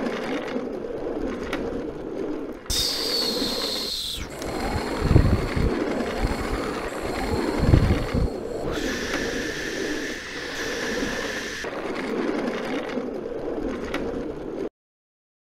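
Shopping-cart wheels rolling and rattling over hard ground, with a few heavy bumps near the middle. A high steady squeal rings out twice, about three seconds in and again from about nine seconds. The sound cuts off abruptly near the end.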